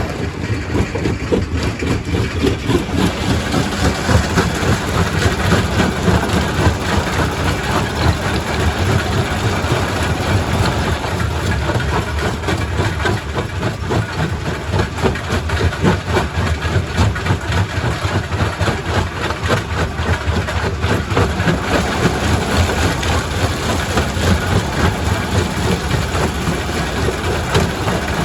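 Quarry primary rock crusher running: dense, continuous knocking and grinding of stone over a steady low drone of heavy machinery.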